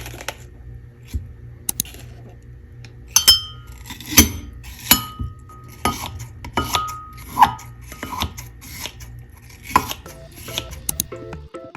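Dishes and cutlery being handled: about a dozen separate knocks and clinks, several of them ringing briefly like ceramic or glass struck by metal.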